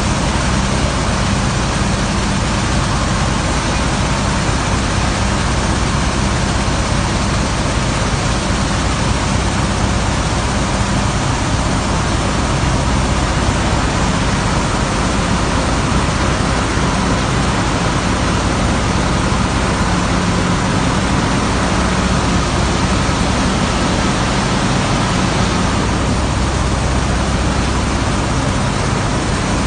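Sand washing machine running: a steady rush of water and wet sand over a low, even motor hum.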